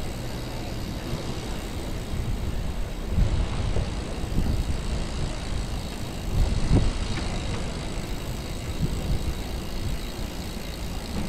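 Wind buffeting the microphone of a camera carried on a moving bicycle: a low rumble with louder gusts about three seconds in and again near seven seconds.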